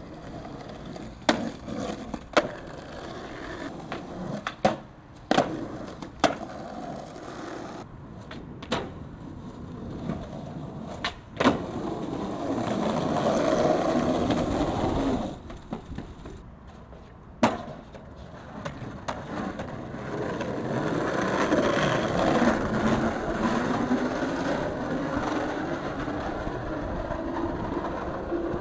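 Skateboard wheels rolling over concrete and rough asphalt, with sharp wooden clacks of the board popping and landing several times in the first half. Longer stretches of steady rolling come in the middle and through the second half.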